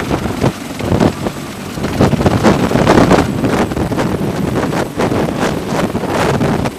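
Sikorsky CH-53E Super Stallion heavy-lift helicopter hovering close by, its rotor noise mixed with heavy downwash wind buffeting the microphone in uneven gusts.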